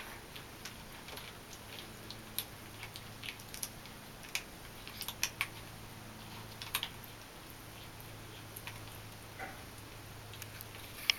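Persian kittens crunching small pieces of dry chicken jerky: soft, irregular crunches and clicks, over a faint steady low hum.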